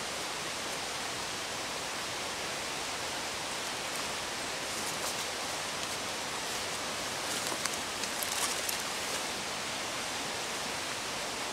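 Small stream flowing, a steady even rush of water. A few brief faint rustles come through about halfway in and again a little later.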